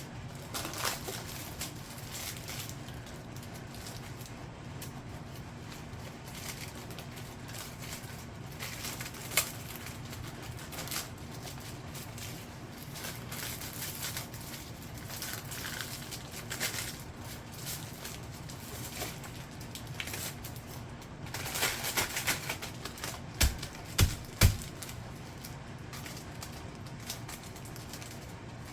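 Scattered rustling, crinkling and clicking from a plastic-wrapped canvas and its packaging being handled, denser about three-quarters of the way through. A few sharp knocks follow, over a steady low hum.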